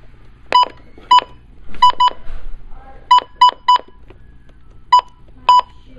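Midland WR100C weather radio giving short, identical electronic beeps of one pitch, about nine of them at irregular intervals, some in quick pairs and triples; the radio's tuner has failed.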